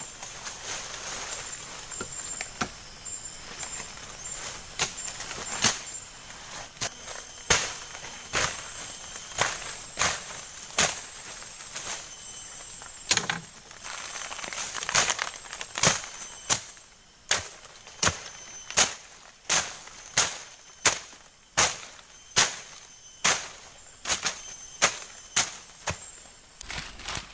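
A long series of sharp strikes, irregular at first and then coming steadily about once every 0.7 seconds in the second half, over a steady high insect drone.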